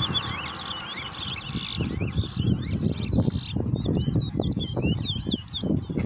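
Caged towa-towa finches singing a fast string of twittering, rising and falling chirps in a head-to-head song race, over irregular low thuds that grow stronger about a third of the way in.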